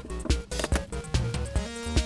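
Background music with a steady beat and pitched synth notes.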